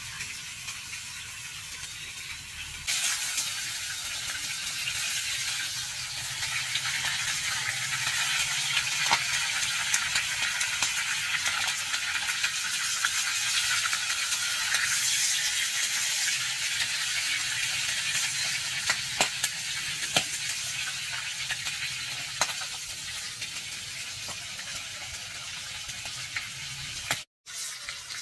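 Food frying in a pan: a steady sizzle that gets louder about three seconds in, with a few sharp clicks scattered through it.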